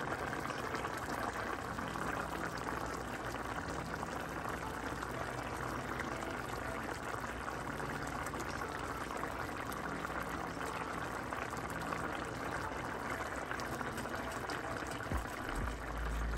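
Chicken stew simmering in a pan, its liquid bubbling at a steady boil: a continuous, even crackle of many small bursting bubbles.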